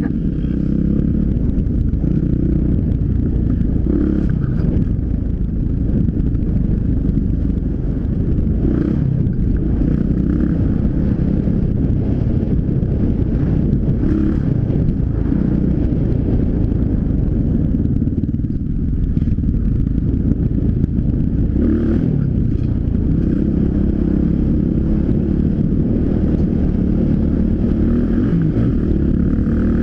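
Dirt bike engine running under way as the bike rides along a dirt trail, heard from a helmet-mounted camera.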